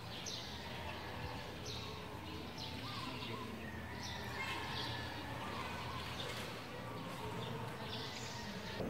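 Birds chirping: short, high, falling chirps every second or so over steady low background noise.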